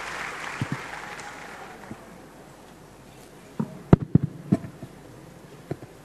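Audience applause dying away over the first two seconds, then a short cluster of knocks and thumps about four seconds in, the loudest sound here.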